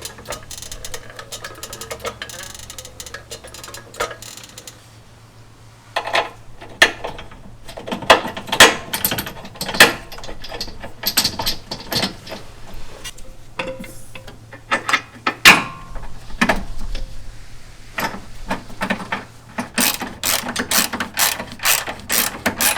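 Socket ratchet wrench clicking in quick runs as bolts are run in and snugged up. The first six seconds or so are quieter, then the clicking comes in bursts, fastest and densest near the end.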